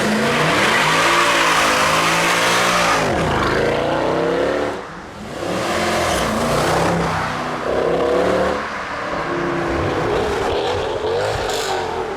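Mercedes-AMG V8 with a loud exhaust accelerating and revving hard, its pitch climbing and dropping in several surges. The engine eases off after about eight seconds.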